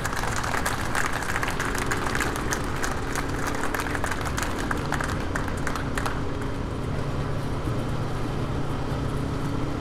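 Crowd applauding and cheering for about six seconds before dying away, over a steady low hum.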